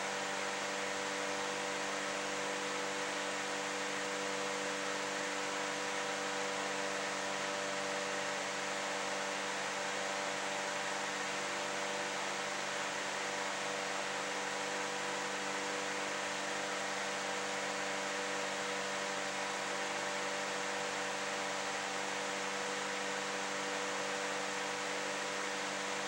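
Steady hiss with a constant hum of several fixed tones underneath, unchanging and without any distinct event.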